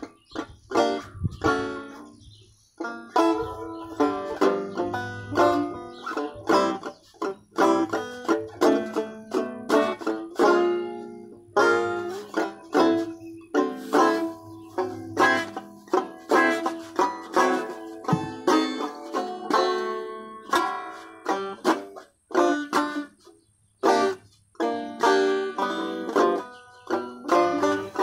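Banjo being fingerpicked: a steady stream of bright plucked notes and rolls, with a couple of short pauses between phrases.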